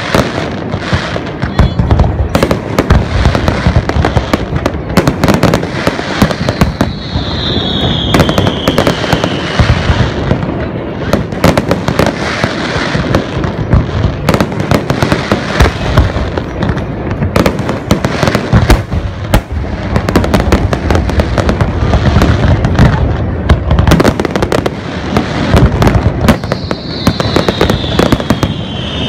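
Aerial fireworks display: a continuous barrage of shells bursting in rapid, overlapping bangs and crackles. A high whistle falling in pitch cuts through twice, about a quarter of the way in and near the end.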